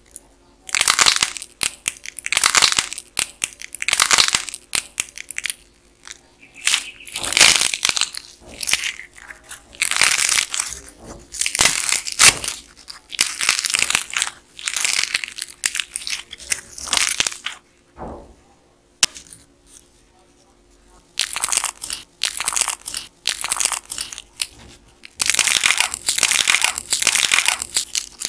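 Dried clay churro models squeezed and torn apart by hand, cracking and crunching in dense runs of short, irregular crackles. There is a pause of a few seconds about two-thirds of the way through, then the crunching resumes.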